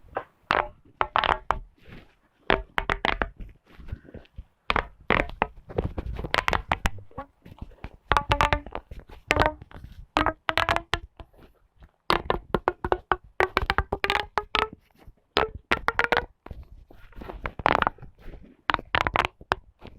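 A ridged plastic pop tube fidget toy being pulled out and pushed back in again and again: quick runs of snapping clicks as its sections pop, with short pitched notes, in bursts separated by brief pauses.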